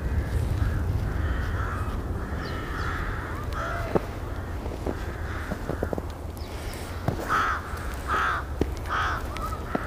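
Crows cawing, a series of harsh calls with three close together near the end, over a low steady rumble. Soft crunches of snow being packed by gloved hands.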